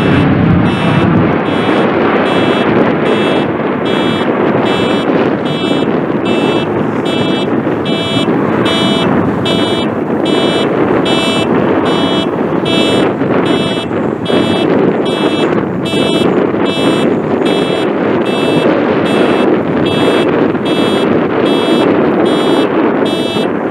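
Four turboprop engines of a Lockheed C-130J Hercules (Rolls-Royce AE 2100D3 driving six-blade propellers) at climb power, a loud steady drone as the aircraft goes overhead and climbs away. A high-pitched tone pulses regularly over it, about one and a half times a second.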